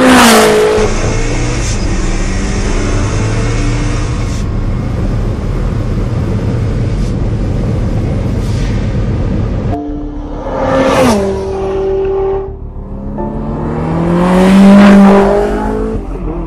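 SSC Tuatara hypercar with a twin-turbo 5.9-litre V8 passing by at very high speed, its engine note dropping in pitch as it goes by. Then a steady drone of engine and wind at speed. Then two more fast passes, about 11 and 15 seconds in; the second one's engine note rises before it drops away.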